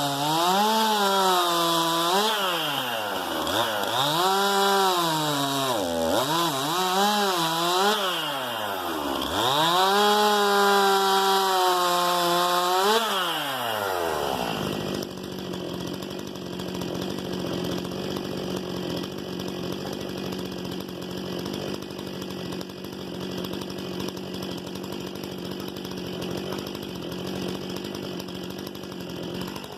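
STIHL MS 261 C-M two-stroke chainsaw cutting firewood, its engine pitch swinging up and down over and over as it revs and loads in the cut. About halfway through the revs fall away, and the saw runs on steadily and more quietly for the rest.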